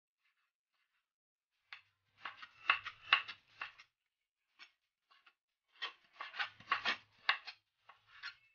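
Kitchen knife cutting raw meat into cubes on a plastic cutting board: two runs of quick knocks of the blade against the board, the first about two seconds in and the second about six seconds in.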